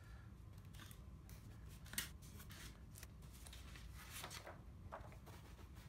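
Faint rustling and sliding of paper template sheets and thin plastic sign pieces handled on a tabletop, with one sharp tap about two seconds in.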